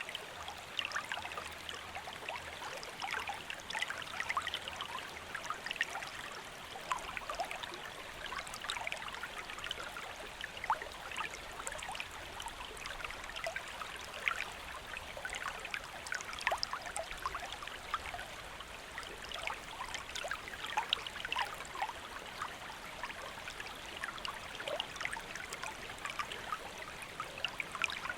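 Shallow stream flowing steadily over rocks, a constant rushing hiss with many small splashes and trickles.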